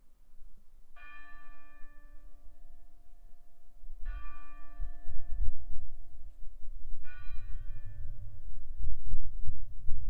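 A single church bell struck three times, about three seconds apart, each stroke ringing on and slowly fading. A low rumble builds from about four seconds in and becomes louder than the bell.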